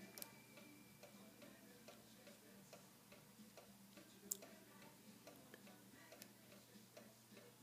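Faint, irregular light ticking of a steel high-hook pick working the pin stack inside a brass Castor Musqué CL lock cylinder under tension, with two slightly sharper clicks, one just after the start and one about four seconds in.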